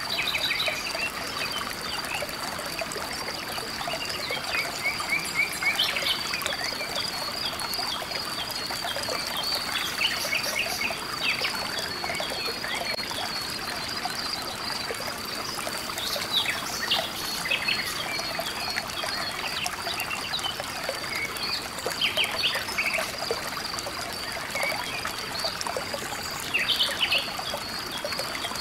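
River water flowing over rocks, with a steady high-pitched trill and scattered short chirping calls of wildlife.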